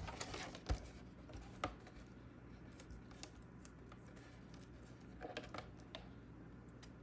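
Quiet handling of a vinyl wrap piece on a plastic charger: soft rustling and scratching with a few sharp clicks, the loudest just under a second in and again at about a second and a half, and another short patch of rustling past the five-second mark, over a faint steady hum.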